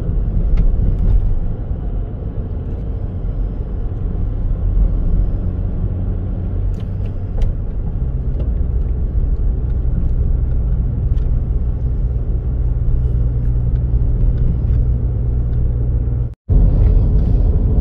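Car driving: a steady low engine and road rumble, which cuts out for a split second near the end.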